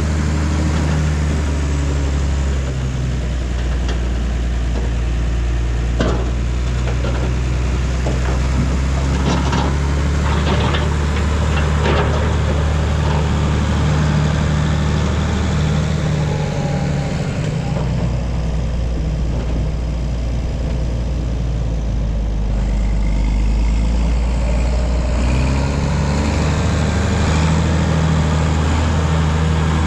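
John Deere 7520 four-wheel-drive tractor's diesel engine running under load as it pushes ground with a front blade. The engine note shifts down and back up several times, and a few sharp clanks come in the first half.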